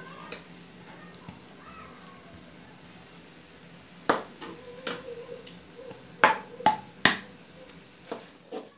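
Long metal spoon knocking and scraping against a steel cooking pot while scooping cooked spinach and kofta: a quiet stretch, then a string of about eight sharp clanks starting about four seconds in, a few with a brief metallic ring.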